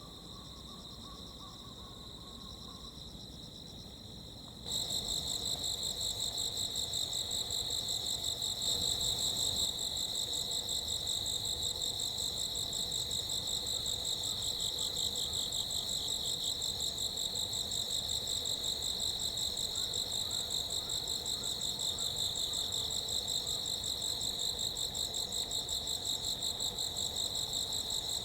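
Insects chirring in a steady, high, rapidly pulsing trill, suddenly louder about five seconds in.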